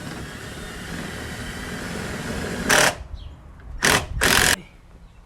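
Power drill running on the plastic side skirt, a steady whir that builds slowly, then three short, loud bursts as it works into the plastic.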